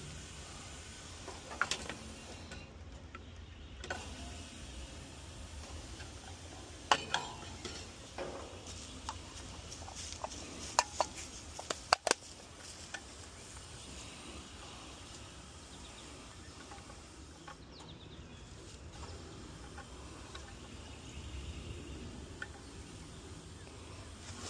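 Scattered sharp clicks and knocks over a steady low hum, most of the clicks bunched together between about 7 and 12 seconds in.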